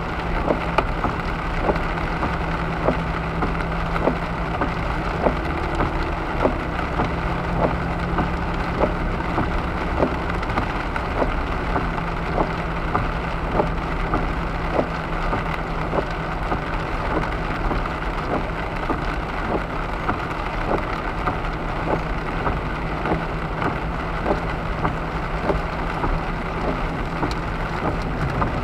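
Rain tapping on a car's windshield and roof, heard from inside the moving car as a steady patter with many scattered sharp drop strikes, over a low steady hum of the car on the wet road.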